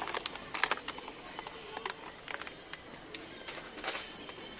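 Handling of groceries at a supermarket checkout: irregular clicks, rattles and rustles of plastic packaging and a wire shopping cart over steady store background noise, with faint voices.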